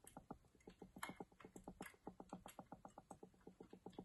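Faint, rapid metallic clicking, about eight clicks a second, from hook picks and a tensioner working the levers inside a Mottura 52771 lever mortise lock as it is being picked.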